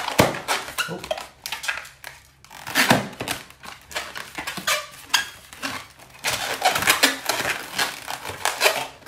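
Inflated latex modelling balloon being twisted and rubbed between the hands, in irregular bursts of rubbery scraping with short quieter pauses.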